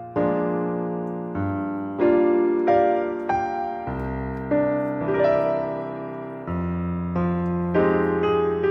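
Background piano music: slow, struck piano notes and chords, each ringing out and fading before the next.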